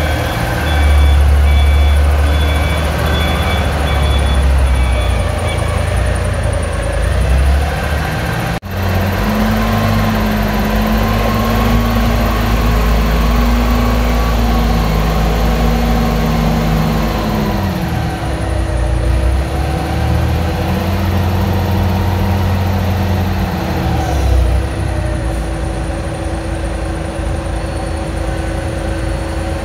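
Engine of a Kaystar Landtiger35 articulated four-wheel-drive rough-terrain forklift running steadily, with a repeating beep over the first few seconds. Twice the engine revs up and holds, then drops back, as it drives the hydraulics to raise the mast.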